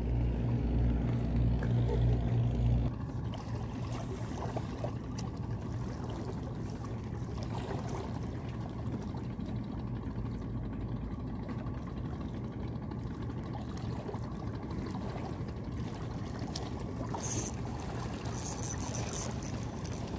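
Boat engine running steadily, louder and pulsing for the first three seconds, then quieter and even. Water laps against the concrete breakwater blocks underneath it.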